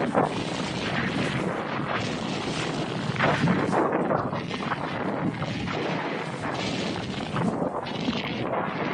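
Wind rushing over an action camera's microphone, with the hiss of skis running through snow on a fast downhill run. It is a steady, loud rush with uneven swells, strongest a little past the middle.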